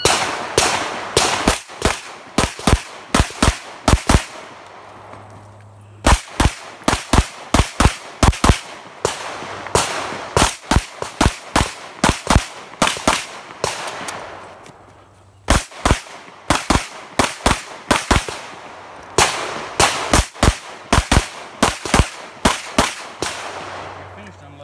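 Pistol fired in rapid strings of several shots a second, each shot sharp with a short echo, broken by pauses of a second or so about four seconds in and again near the middle, as a USPSA stage is shot against the clock.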